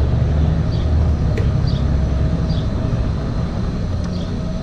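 Low, steady vehicle engine rumble of a car moving slowly, with faint high chirps repeating about twice a second over it.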